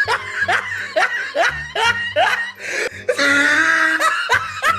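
Laughing sound effect, a run of short rising 'ha' calls about two a second, over background music with a steady low beat; a held note comes in about three seconds in.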